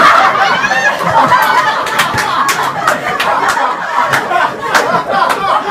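A room of dinner guests laughing out loud together, with overlapping chatter.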